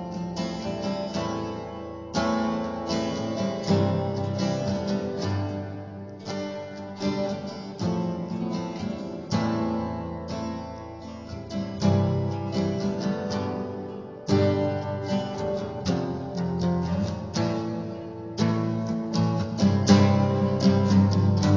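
Acoustic guitar playing an improvised instrumental: strummed and picked chords, with a fresh strong chord struck about every two seconds.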